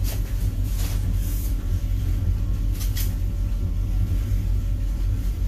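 Steady low motor rumble, with a few light clicks about a second in and around three seconds in.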